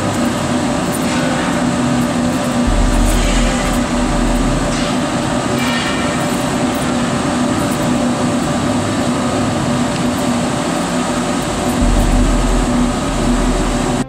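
A biomass pellet burner and its centrifugal blower fan running: a loud, steady rushing noise with a steady hum. A low rumble rises twice, about three to five seconds in and again near the end.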